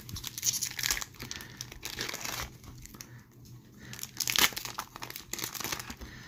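Foil trading-card pack wrapper being torn open and crinkled by hand, in irregular bursts of rustling, the loudest about four and a half seconds in.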